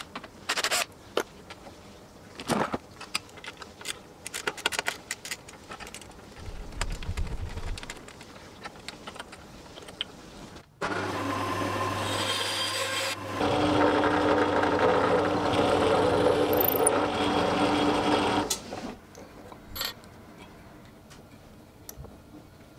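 Band saw running, then cutting through a strip of wood for about five seconds with a steady hum and a rasping note, stopping at about 19 seconds. Before it, scattered knocks and clicks of tools being handled; a few light knocks follow.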